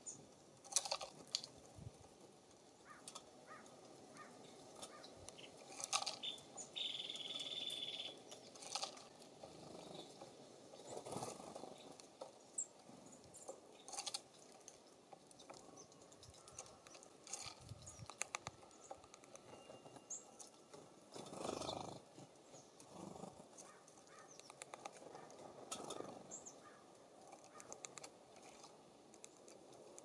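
Faint, scattered songbird chirps and short calls with small taps and clicks around the feeders, including one held high note about seven seconds in.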